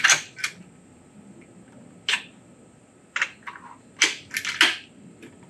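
A series of short, sharp mechanical clicks and clacks, about eight of them in uneven clusters, from hands working a big-bore air rifle between shots.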